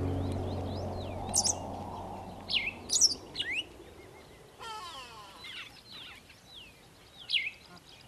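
Small birds chirping: short, quick sweeping whistles in little clusters, several times, over a faint background. The tail of a music track fades out in the first couple of seconds.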